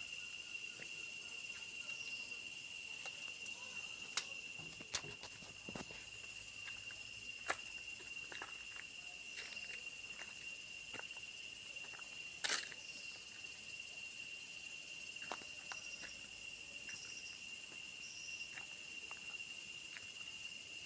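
Insects droning in a forest: one steady, unbroken high tone throughout, with scattered sharp clicks and ticks, the loudest about halfway through, and three short high chirps near the end.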